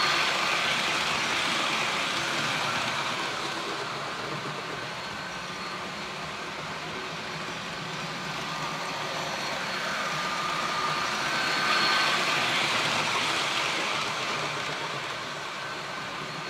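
Model passenger train running on the layout track, a steady rolling rattle with a faint motor whine. It is loudest as the train passes close by at the start and again about twelve seconds in, and quieter in between.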